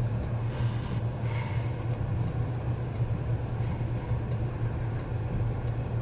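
Steady low cabin hum inside a Waymo Chrysler Pacifica Hybrid minivan, with faint, evenly spaced ticks about three every two seconds.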